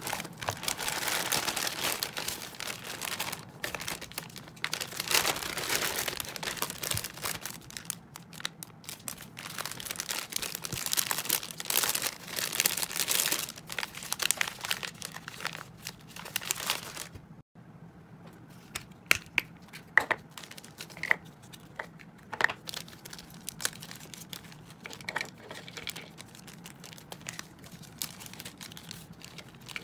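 Plastic packaging crinkling and rustling: a plastic mailer bag is cut open and clear zip-lock bags of dry hamster food are handled. About two-thirds of the way in the rustling stops abruptly, giving way to quieter handling with scattered light clicks and taps.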